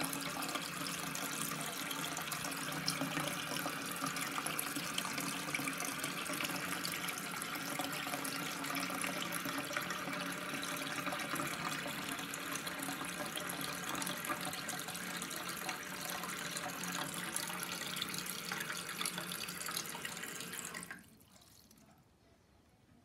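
Armitage Shanks low-level toilet cistern refilling through its blue plastic fill valve: a steady rush of inflowing water that cuts off suddenly about 21 seconds in as the valve shuts.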